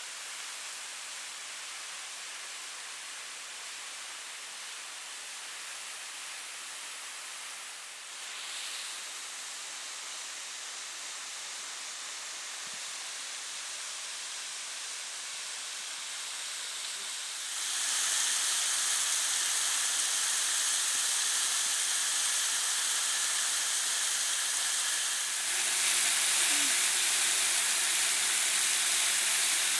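Steady rush of a waterfall, an even hiss of falling water that gets louder in a step about two-thirds of the way through and again near the end.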